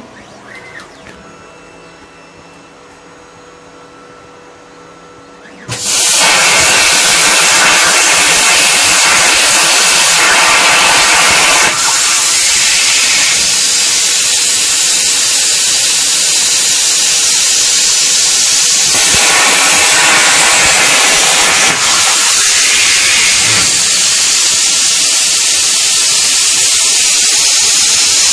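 Plasma cutter torch on a CNC table firing about six seconds in: a sudden, loud, steady hiss that runs on, with two brief dips. Before it, only a low hum. The cutter is set to about 25 amps for a test cut in thin steel sheet.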